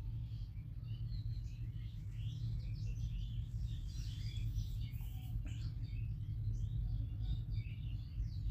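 Birds chirping, many short irregular chirps, over a steady low hum.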